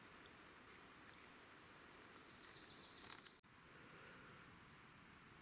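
Faint outdoor background hiss, with a high, rapid trill of quickly repeated notes from a small songbird lasting just over a second, about two seconds in.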